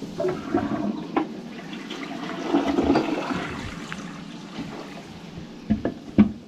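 Toilet flushing: water rushing and swirling, swelling about halfway through, with a few sharp knocks, the loudest near the end.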